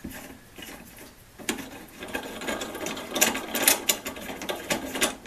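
Antique C-clamp's square-threaded steel screw being turned through the threads of its frame, a rapid metallic rattling and clicking that starts about a second and a half in. The threads have some slop, so the screw rattles around as it turns.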